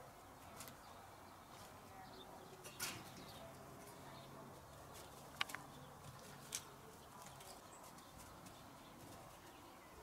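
Near silence: quiet outdoor background with a few brief faint ticks and a short chirp-like click about five and a half seconds in.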